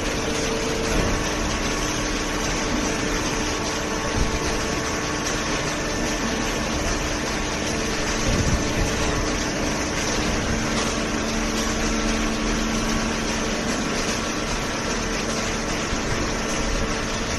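Hydraulic paper baler's motor and pump running steadily, a continuous mechanical hum with a few steady tones over a broad rushing noise.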